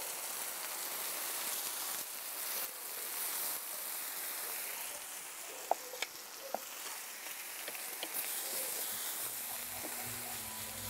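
Radish greens and chilacayote squash slices sizzling steadily on a hot comal, with a few light clicks about halfway through. Soft music comes in near the end.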